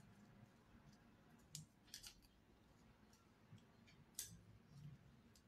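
Pair of scissors snipping, a handful of faint, sharp snips at uneven intervals.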